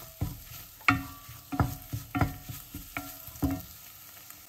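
Wooden spoon stirring a thick onion-and-spice masala in an enamelled cast-iron pot, knocking against the pot about six times with a short ringing note after each knock, over a light sizzle of the frying masala. The knocks stop about a second before the end.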